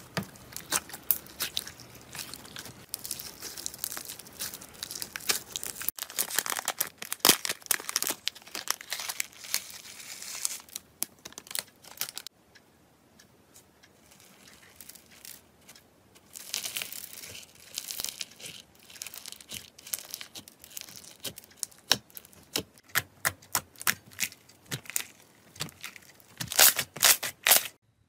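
Slime being squeezed and pressed by hand: dense runs of sticky crackling clicks and pops. There is a quiet spell about twelve to sixteen seconds in, and a cluster of loud pops near the end.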